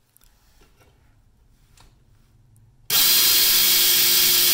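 Small battery-powered electric chainsaw, its motor wired straight from the battery through an on/off switch, switched on about three seconds in and running at full speed with a steady high whir of motor and chain. The direct wiring leaves no variable-speed control, so it runs so fast.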